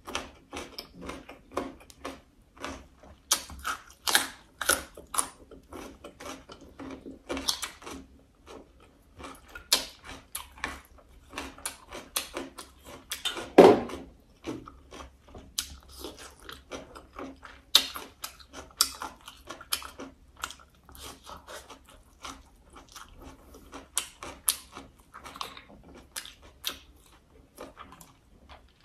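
Close-miked eating sounds: chewing and crunching with many sharp clicks and cracks from handling and breaking braised crab shells. One louder crack comes about halfway through.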